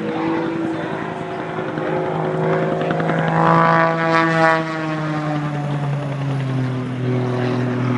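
Propeller airplane flying past, its engine growing louder to a peak about halfway through, then dropping in pitch as it passes and moves away.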